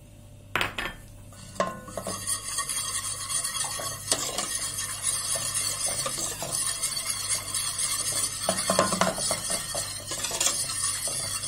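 Metal wire balloon whisk beating rapidly against the inside of a stainless steel pot, a continuous fast scraping and clinking that starts about two seconds in after a couple of knocks. It is whisking an egg yolk into the cold milk, sugar and toasted-flour base of a milk pudding.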